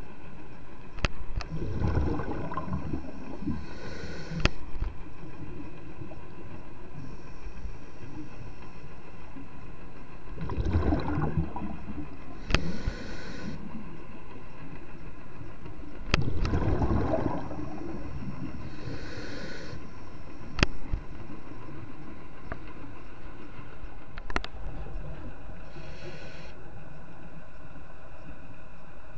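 Scuba diver breathing through a regulator underwater: a bubbly rumble of exhaled air every six seconds or so, with the hiss of an inhale between them, and a few sharp clicks.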